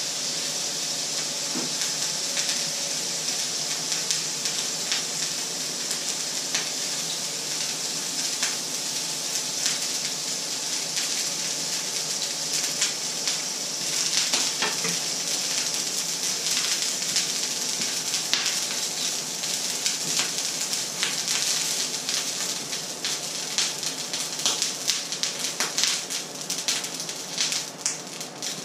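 Food frying in hot oil in a pan on the stove: a steady sizzle with crackling pops that come more often toward the end.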